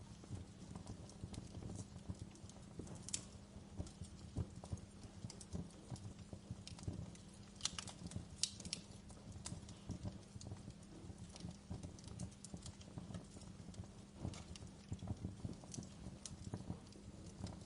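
Wood fire crackling: a low steady rumble of flames under a dense, irregular stream of small pops, with a few sharper snaps near the middle.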